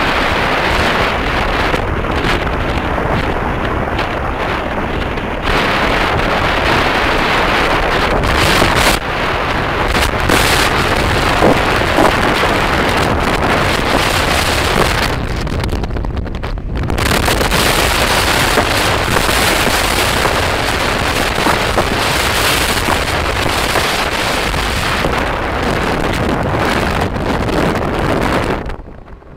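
Wind rushing over the microphone of a phone carried on a moving motorbike: a loud, steady rushing noise. It thins briefly about halfway through and drops away sharply near the end.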